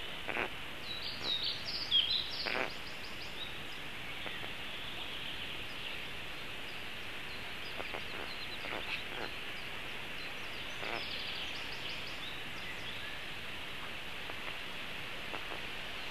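Forest ambience under a steady hiss: songbirds singing in short phrases, mostly in the first few seconds and again about ten seconds in, with a few short clicks.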